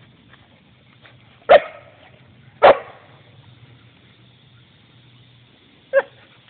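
Belgian shepherd dog barking in play: three short, sharp barks, the first two about a second apart and the third about three seconds later.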